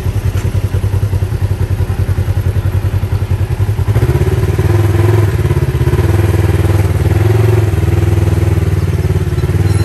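Polaris RZR side-by-side's engine running at low speed with an even pulsing beat. About four seconds in it revs up and holds a louder, steadier note under light throttle.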